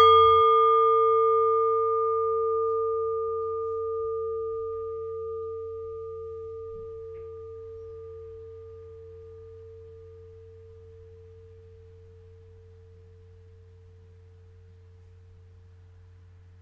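Singing bowl struck once to close the meditation, ringing with a low main tone and several higher overtones. The overtones die away within a few seconds while the main tone fades slowly, still faintly audible near the end, over a steady low hum.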